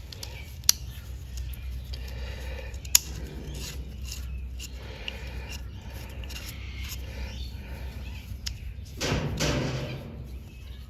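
Small metal clicks and handling sounds as the pawl is dropped back into a Sidchrome ratchet head and the parts are fitted together, with two sharp clicks about a second and three seconds in. A brief voice-like sound comes near the end.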